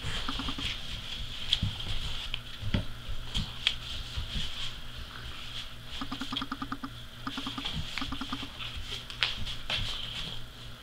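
Livestock guardian dog puppies scuffling on a wooden plank floor during a tug of war, with irregular clicks and knocks of claws and paws scrabbling on the boards. Several short growls come about two-thirds of the way through.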